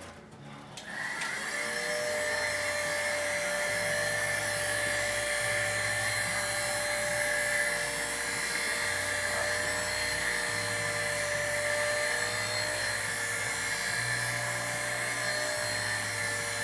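Small electric motor running steadily with a high, even whine, starting about a second in and holding one pitch throughout.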